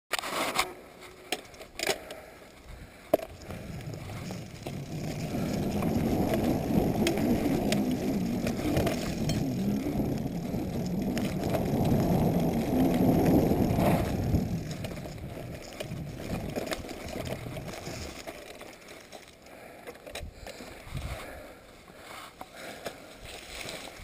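Corratec mountain bike riding down a dirt forest singletrack: tyres rumbling over the trail with the bike rattling, and a few sharp knocks in the first few seconds. The rumble builds from about five seconds in, is loudest a little past the middle, then eases off.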